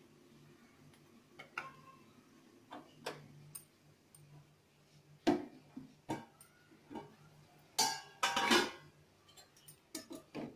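Clinks and knocks of stainless-steel cookware and dishes being handled, a few separate sharp clicks followed by a longer, louder clatter about eight seconds in.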